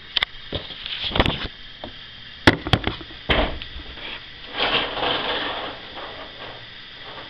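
Camera and magazine handling noise: several sharp clicks and knocks in the first three and a half seconds, the loudest about two and a half seconds in, then a short rustle around the five-second mark.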